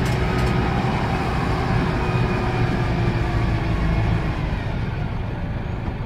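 Tractor diesel engine running steadily under load as the tractor drives slowly up a loading ramp onto a truck bed.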